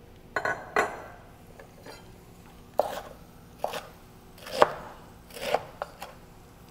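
Knife chopping cooked, squeezed-out broccoli rabe on a wooden cutting board: about seven separate strokes at an uneven pace, the strongest a little past halfway.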